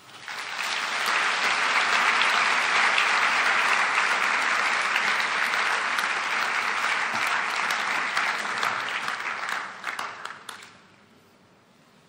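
A large audience applauding. The clapping swells within the first second, holds steady, then thins out into a few last claps and stops about ten and a half seconds in.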